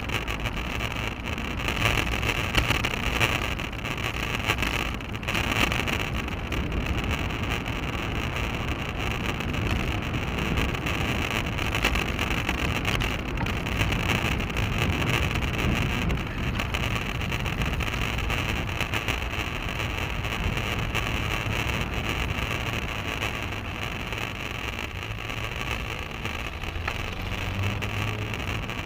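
Steady wind rush and road rumble picked up by a bicycle-mounted action camera while riding, with no break.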